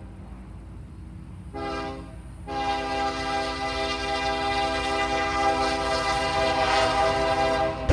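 Diesel freight locomotive's multi-tone air horn over the rumble of the approaching train: one short blast about a second and a half in, then a long blast held to the end, the short-then-long close of a grade-crossing horn signal.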